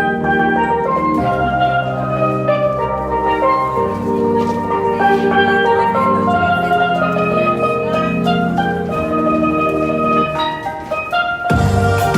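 Background music with bright pitched notes resembling steel pan, joined by fuller drums and bass near the end.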